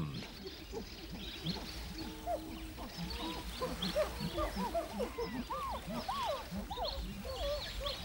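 Chimpanzees vocalizing: many short squeaks and whimpers, each rising and falling in pitch, overlapping one another.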